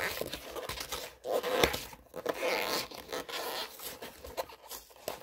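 Pokémon card box being torn and pried open by hand: an uneven run of short rasping tears and scrapes of its wrapping and cardboard, the box resisting.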